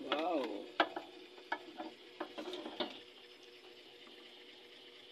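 Freshly roasted lechon belly crackling: a few scattered clicks and pops over a steady hum, after a short exclamation right at the start.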